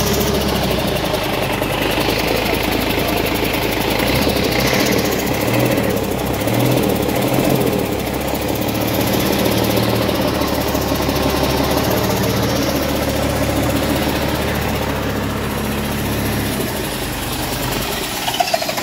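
Doosan DE12TiS inline-six turbo diesel engine running steadily, its engine-driven cooling fan spinning.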